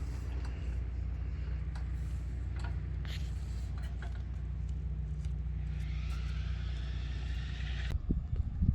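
An engine running steadily with an even, low hum. Near the end it gives way to loud, irregular low thumps.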